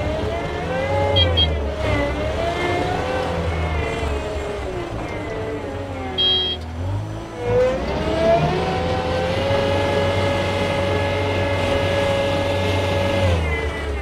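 Kubota SSV65 skid steer's 4-cylinder turbo diesel engine (Kubota V2607) running under load as the machine drives and turns. The engine speed rises and falls, dips briefly about halfway, then climbs and holds steady for several seconds before dropping near the end.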